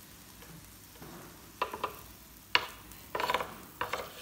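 Wooden spatula scraping and knocking on the ribbed plate of an electric grill while turning shrimp and mussels: several short strokes starting about one and a half seconds in, over faint sizzling.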